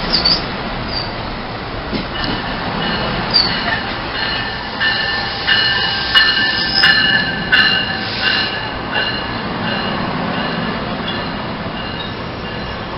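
NJ Transit bilevel commuter coaches rolling along the platform: steady rumble of the wheels on the rail, with high wheel squeal that comes and goes, strongest about five to nine seconds in.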